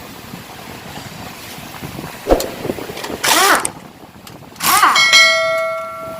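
Metal parts and tools being handled during an engine teardown: a sharp knock about two seconds in, then two louder rough clattering bursts. Near the end a loose metal part rings with several clear tones for about a second.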